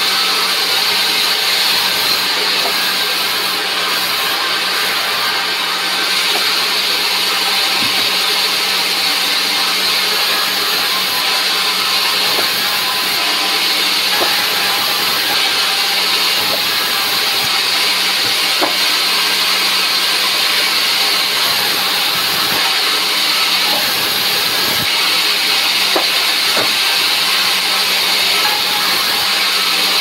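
Large vertical band saw running and cutting a log of dry wood into boards: a steady loud hiss of the blade in the wood over a constant low motor hum, with a few faint knocks.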